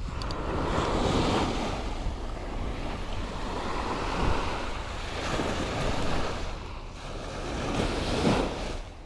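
Ocean waves washing on the shore, swelling and easing several times, with wind rumbling on the microphone.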